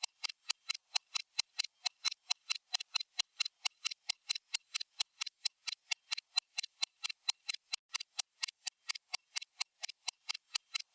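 Stopwatch ticking sound effect: sharp, even ticks at about four to five a second.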